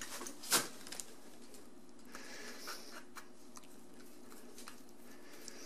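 Quiet work on the dishwasher's electrical box: one sharp click about half a second in, then faint small ticks and scraping as the strain-relief clamp screw is tightened down on the power cable, over a low steady hum.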